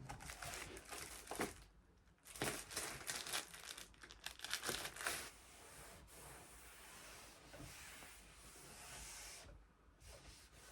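Crinkling, rustling handling noise: a run of sharp crackles through the first five seconds, then a softer, steadier hiss that fades near the end.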